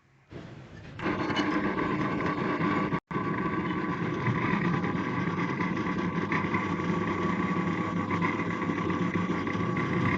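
Homemade drill press powered by a washing machine motor through the washer's gear reduction box. It starts up within the first second and runs with a steady hum, cut off for an instant a few seconds in.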